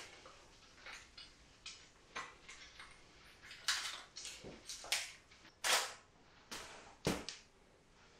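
Velcro strap of a honeycomb grid being fastened onto a speedlight's flash head, heard as a series of short tearing rips and clicks, most of them in the second half.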